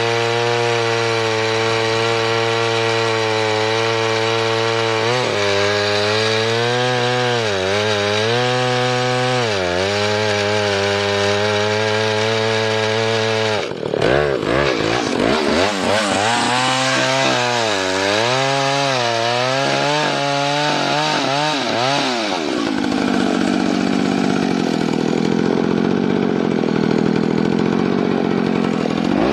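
Vintage Husqvarna 2100-series two-stroke chainsaw cutting through a large log at high revs. The engine pitch repeatedly sags and recovers as the chain bites into the wood, with a brief drop partway through. About two thirds of the way in it climbs to a higher, steadier speed.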